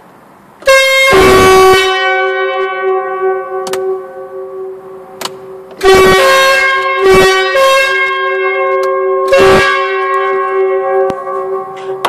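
A pair of truck air horns taken from a Renault lorry, fed from a compressor tank and each opened by its own solenoid, blasting together as a very loud two-note chord like a train horn. The lower note holds almost throughout, while the higher note and the overall loudness swell again with fresh rushes of air at about one, six and nine and a half seconds in.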